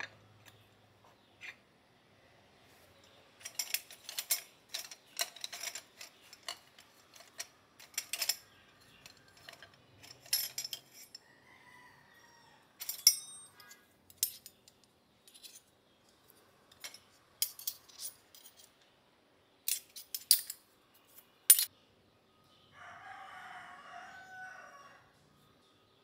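Stainless-steel measuring spoons and utensils clinking and clattering against each other as they are handled and pulled from a utensil crock, in sharp, irregular clinks. Near the end a steadier pitched sound lasts about two seconds.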